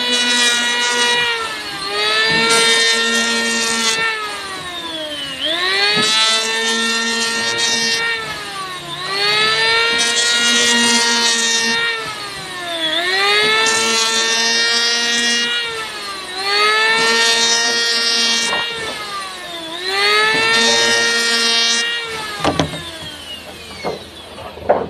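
Electric power tool cutting wood, its motor whining at a high pitch that sags each time wood is fed into the cutter and climbs back as the load comes off, about six times. A few knocks of wood near the end.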